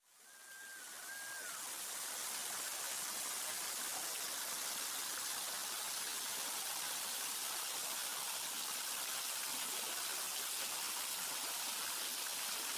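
Small waterfall splashing over rocks into a pool: a steady rush of water that fades in over the first two seconds. A brief high whistled note sounds about half a second in.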